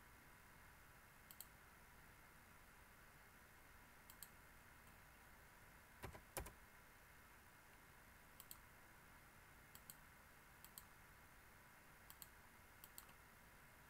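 Computer mouse clicking every second or two, each click a quick pair of ticks, over a faint steady hiss; the loudest pair comes about six seconds in.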